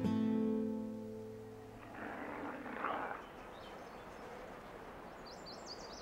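Acoustic guitar music, a last chord ringing out and fading over the first two seconds. Then faint background with a soft hissing noise about two to three seconds in and a few faint high chirps near the end.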